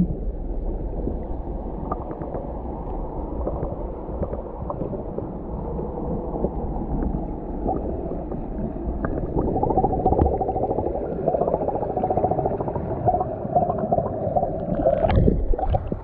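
Muffled, steady gurgling and rushing of stream water from a small waterfall spilling into a rock pool.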